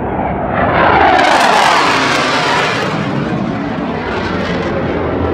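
Jet aircraft flying low overhead. Its noise swells about half a second in, drops in pitch as it passes, and fades by about three seconds in.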